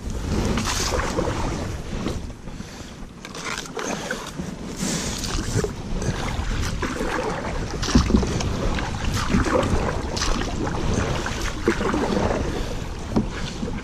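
Canoe paddle dipping and splashing in river water, with wind rumbling on the microphone. A louder knock comes about eight seconds in.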